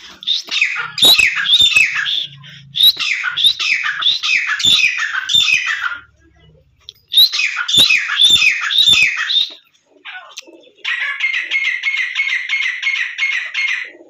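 Grey francolins calling: two bouts of loud, repeated phrases of falling notes, then near the end a fast, even run of short clipped notes, about six a second. A few sharp knocks fall among the calls.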